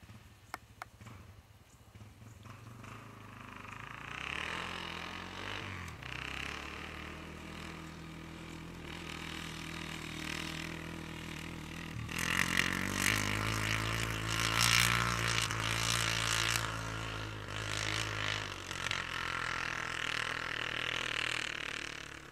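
Enduro dirt bike engine revving and shifting as the bike draws near, loudest as it passes close about twelve to eighteen seconds in, then fading as it rides away.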